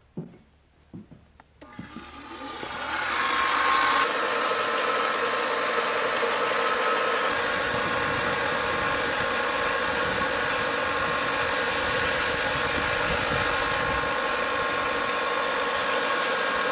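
Benchtop belt sander starting up about two seconds in, its level building over a couple of seconds, then running steadily as a wooden decoy blank is held against the belt: a steady hum with a rushing hiss.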